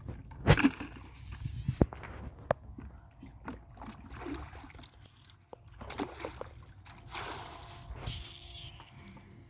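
Water sloshing and splashing with scattered knocks and clatters as carrots are washed by hand.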